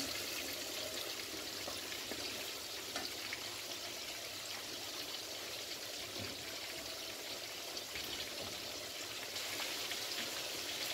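Food frying in a pan of hot oil: a steady sizzle with fine crackles throughout.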